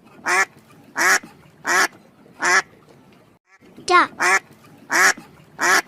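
A duck quacking: single short quacks about one every 0.7 s, four in a row, a pause of about a second, then three more.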